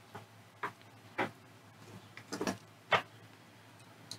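About five irregular, sharp clicks and taps of small hand tools and wire being handled on a workbench.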